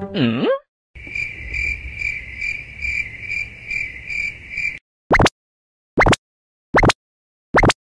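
Cricket chirping: a steady high trill pulsing about twice a second, which stops about five seconds in. Four short rising chirps follow, spaced under a second apart. A brief sliding pitched sound comes at the very start.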